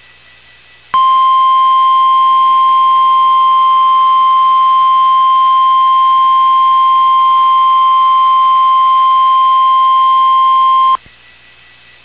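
NOAA Weather Radio 1050 Hz warning alarm tone: one loud, steady, high tone that starts abruptly about a second in and cuts off about ten seconds later. It is the alert sounded before a warning message, here a tornado warning. Faint radio hiss before and after it.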